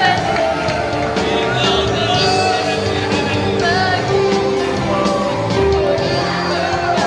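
Mixed youth choir singing a praise song together over instrumental accompaniment with a steady beat.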